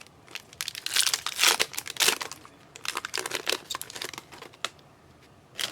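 Trading card pack wrapper being torn open and crinkled by hand: a quick run of crackling, tearing strokes that dies down near the end.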